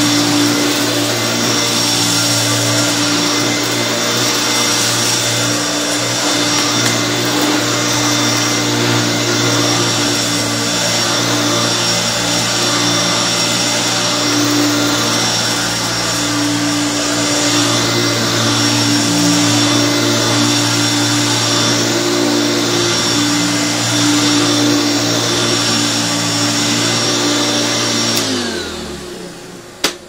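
Hoover Turbopower vacuum cleaner running with a steady motor whine. Near the end it is switched off and the motor spins down, its pitch sliding down as the sound fades, followed by a single click.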